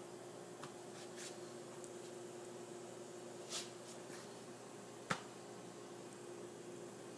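Quiet room tone with a steady low hum and a few light clicks and taps, the sharpest about five seconds in.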